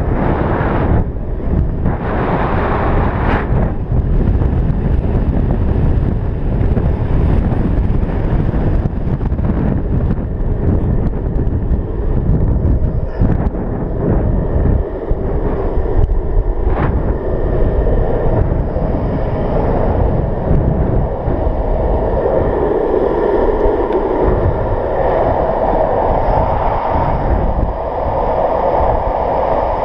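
Strong wind buffeting the camera microphone on a downhill longboard run at speed, over the steady roll of urethane wheels on asphalt. The rush gets fuller and louder in the second half as the board picks up speed.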